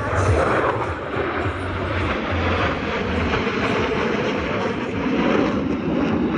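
Blue Angels F/A-18 Super Hornet jets flying past in formation: a loud, steady rushing jet-engine noise with a low rumble underneath.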